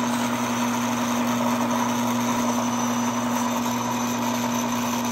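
Timken wear test machine running with a steady motor hum and a clear constant tone, its steel test ring turning against an unlubricated steel test block.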